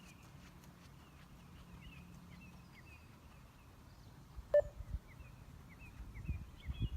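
A single short electronic beep from a 20 m beep-test recording about four and a half seconds in, marking the end of a level-7 shuttle. The runner's footfalls thud steadily louder near the end, over faint chirping in the background.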